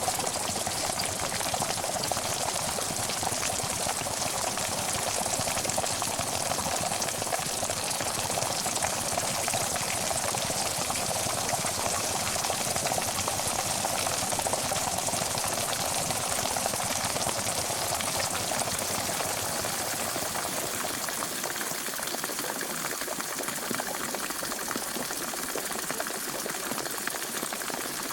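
A pot of water at a steady rolling boil, a continuous dense bubbling and crackle that eases a little in the last third.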